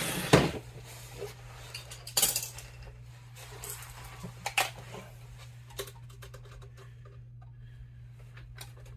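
Metal clicks and clinks of a screwdriver on the screw and the sheet-metal cover of a Honeywell boiler aquastat being worked loose and lifted off. The sharpest clink comes just after the start, another about two seconds in, and a run of small ticks after about five seconds, over a steady low hum.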